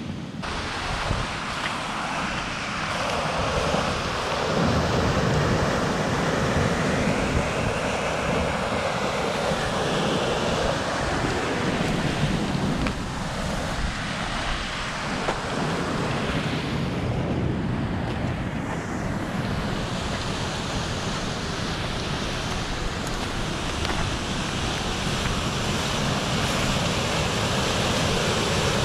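Wind on the microphone mixed with the rush of fast-flowing spring floodwater, a steady noise that grows a little louder near the end.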